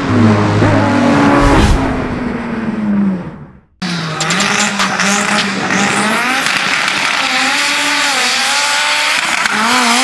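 Turbocharged Toyota 4A-GE 1.6 L four-cylinder in a Suzuki Samurai, revving up and down, then rising in pitch as it pulls away near the end. It is preceded by an intro sound that fades out to a brief silence about three and a half seconds in.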